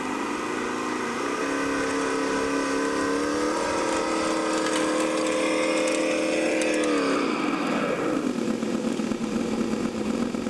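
R/C monster truck's drive motors whining under load as it pulls a weighted sled; the pitch steps up twice in the first few seconds, holds steady, then winds down about seven seconds in.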